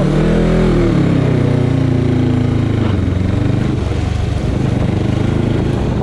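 Motorcycle engine pulling away: its pitch rises in the first second, drops as it shifts gear, then runs steady, over a steady rush of wind and road noise.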